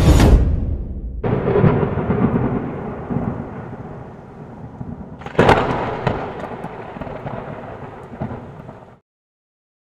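Thunder: rolling rumbles, with a sharp loud clap about five seconds in that fades away slowly. The sound cuts off abruptly near the end.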